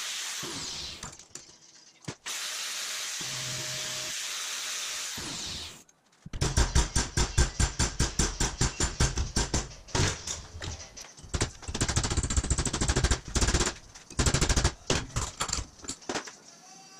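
An angle grinder running against a steel part clamped in a vise, stopping briefly and starting again, then shutting off about 6 s in. Then a fast run of steel hammer blows on a round steel piece in the vise, several strikes a second with a short pause partway through.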